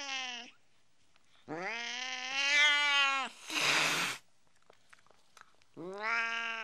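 Domestic cat meowing: three drawn-out meows, the longest nearly two seconds with a wavering pitch, and a short breathy hiss just after it.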